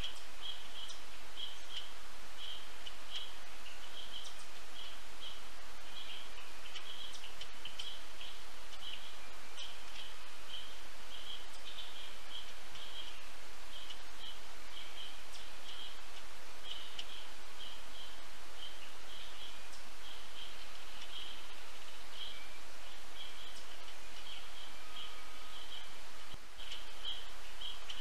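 Outdoor ambience at a summer bird feeder: a short high chirp repeats about twice a second throughout over a steady hiss, with a few faint, irregular taps.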